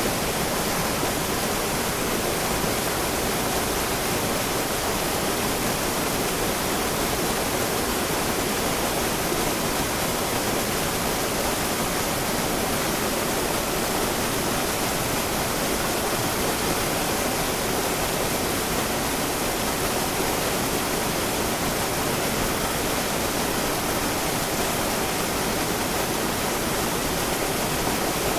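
River water flowing continuously, a steady rushing with no breaks or changes.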